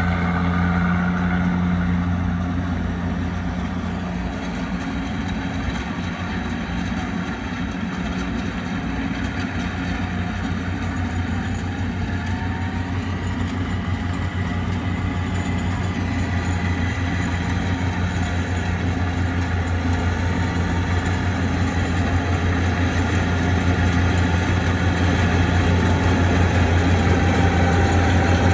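Yanmar 82 rice combine harvester's diesel engine running steadily, with a low, even drone that grows gradually louder toward the end.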